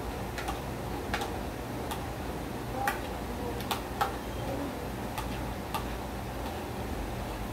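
Metal spoon clinking and scraping against a plate while eating: about a dozen sharp, irregular clicks, the loudest a little before and a little after the middle, over a steady low hum.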